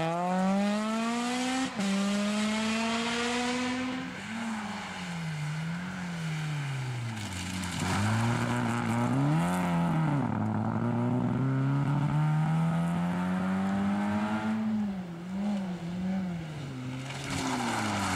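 Rally hatchbacks, a Citroën C2, a Peugeot 205 and a Renault Clio, passing one after another at racing speed: engine notes climbing hard through the revs with a quick upshift about a second and a half in, then lifting off with the pitch wavering and dropping. A second car climbs steadily through the revs in the middle, with short throttle blips after it, and a third car arrives near the end.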